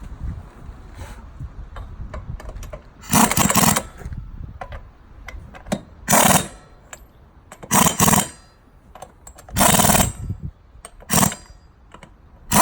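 A handheld power tool run in short bursts, about six of them, each half a second to a second long with pauses between, as bolts are run down in a star pattern.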